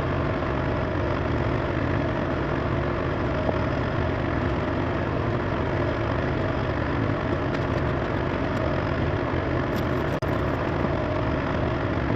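A diesel engine idling steadily, with one very brief dropout about ten seconds in.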